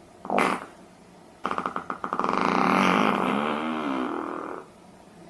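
A long fart of about three seconds. It starts as a rapid flutter and settles into a steady buzzing tone that wavers in pitch before stopping. A brief puff of sound comes about half a second in.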